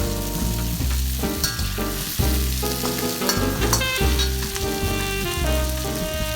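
Food sizzling as it fries and is stirred in a pan, under background music with a pulsing bass line and clear melodic notes.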